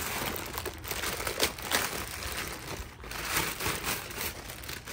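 Clear plastic wrap crinkling and crackling irregularly as a new brake rotor is handled and worked out of its bag.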